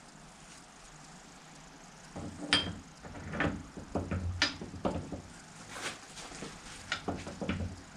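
Irregular metallic clinks and knocks from hand tools and parts being handled on a Fordson Major tractor's cylinder head, starting about two seconds in.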